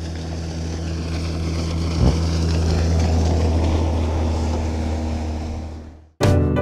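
Small outboard motor running steadily under way, heard close up from aboard the dinghy, with water and wind noise over it. It fades out near the end, and music cuts in.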